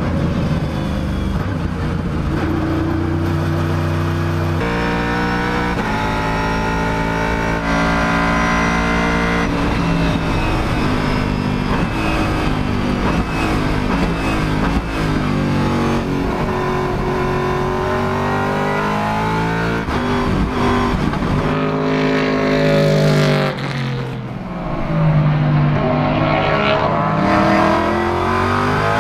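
Aston Martin V8 Vantage GTE race car's V8 engine under hard acceleration, the note climbing and dropping back at each quick paddle-shift upshift. Later it eases off with short rising blips on the downshifts, then pulls hard again.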